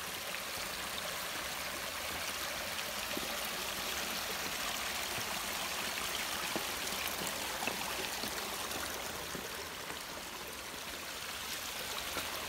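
Small mountain stream running steadily over rocks.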